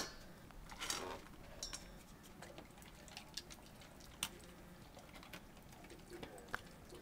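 A dog eating dry kibble: faint, scattered crunches and clicks, with kibble knocking against a stainless steel bowl.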